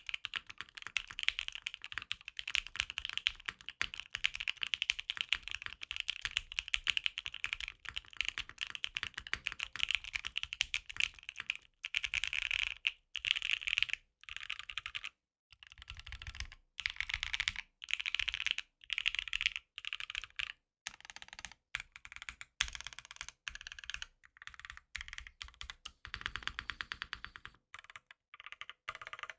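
Typing on a Freebird TKL mechanical keyboard built with lubed and filmed ThicThock Marshmallow switches, a POM plate and PBT keycaps: a fast, even run of keystrokes that breaks into shorter bursts with brief pauses from about halfway on.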